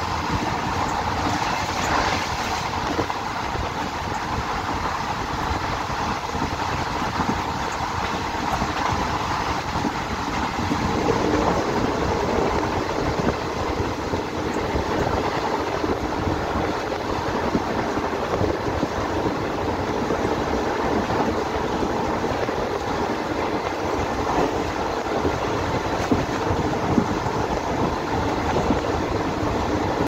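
Wheels of a moving ICF passenger coach running on the rails: a steady rolling track noise with a few clickety-clack rail-joint knocks. The sound grows a little fuller about eleven seconds in.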